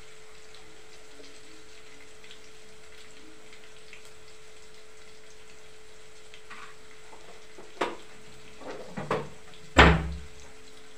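A steady faint hum, then a few knocks and clatters near the end, the loudest a heavy thump.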